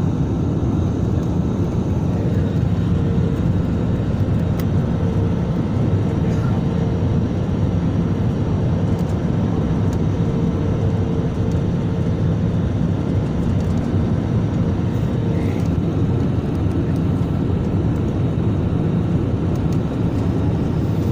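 Passenger airliner cabin noise: the engines and rushing air make a steady, loud, low rumble with a faint constant hum over it.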